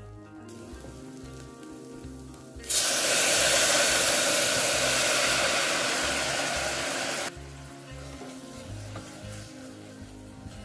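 Loud sizzling as mirin hits the hot saucepan of stir-frying dried anchovies and hot pepper paste. It starts suddenly about a quarter of the way in, eases slightly, and cuts off about four and a half seconds later. Softer wooden-spoon stirring comes before and after.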